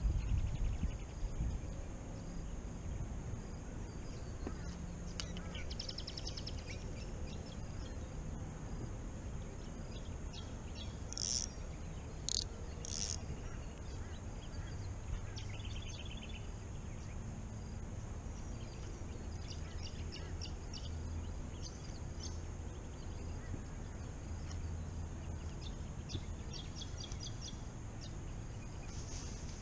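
Creek-side outdoor ambience: a steady high insect hum, with short bursts of high chirping calls scattered through it, over a low rumble.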